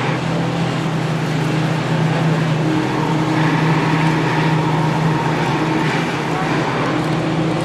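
A motor vehicle engine running steadily: a constant low hum over a wash of road and traffic noise.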